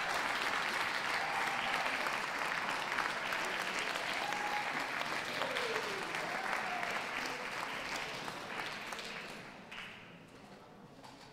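Audience applauding steadily, then fading away about nine to ten seconds in.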